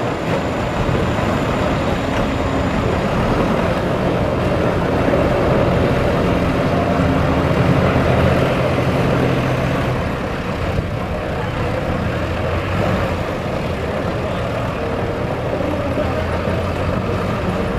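John Deere tractor diesel engines running as the tractors drive slowly past. The sound is loudest around eight seconds in and eases a little after.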